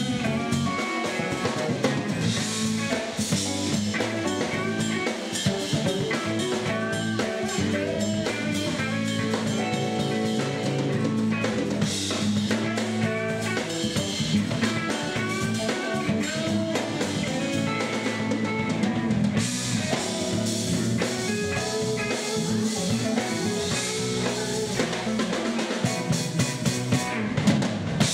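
Live band playing with drum kit, electric guitars and keyboard, a steady beat with snare and bass drum under moving guitar and keyboard lines.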